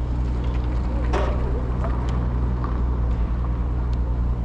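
A steady, low engine hum runs throughout.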